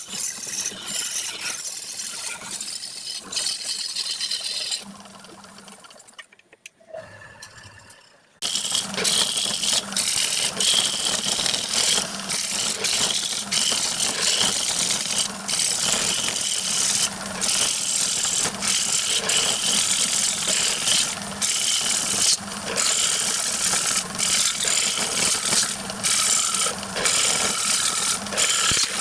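Wood lathe running with a turning tool cutting the spinning wood: a steady hiss and scrape over a low motor hum. The sound drops low for a few seconds, then picks up loud and steady about eight seconds in, with brief breaks.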